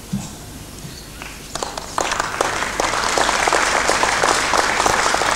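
Audience applauding: a few scattered claps about a second and a half in, quickly building into steady, dense clapping.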